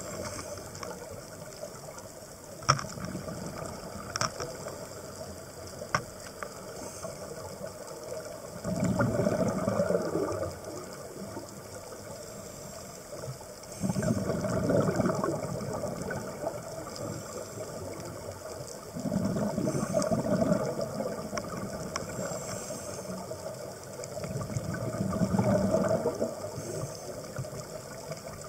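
A scuba diver breathing through a regulator underwater, heard from the camera: four rushing bursts of exhaled bubbles a few seconds apart over a steady low hiss. A few sharp clicks come in the first several seconds.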